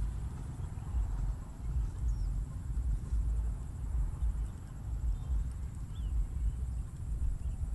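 Uneven, gusting rumble of wind buffeting the microphone, with a couple of faint bird chirps, one about two seconds in and one about six seconds in.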